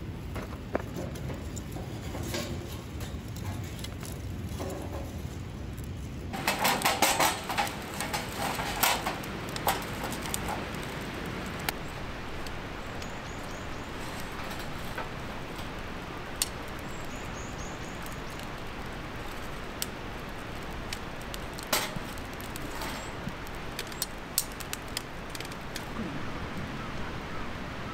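Wood fire in a small steel fire pit, crackling with scattered sharp pops. A cluster of knocks and clatters comes about seven to ten seconds in, after a quieter stretch of faint knocks over a low hum while the kindling is laid.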